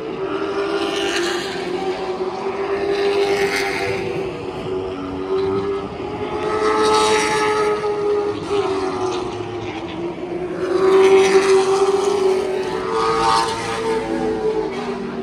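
Race car engines lapping a short oval during practice. The sound swells several times as cars pass, loudest about eleven seconds in, with the engine pitch bending up and down through the corners.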